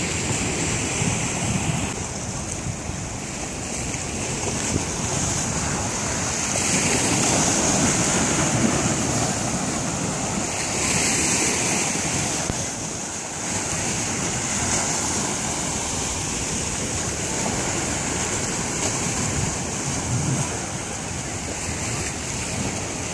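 Gentle surf washing on the beach, swelling and easing a few times, with wind buffeting the microphone.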